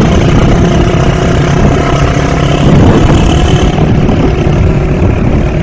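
Motorcycle engine running loudly and steadily.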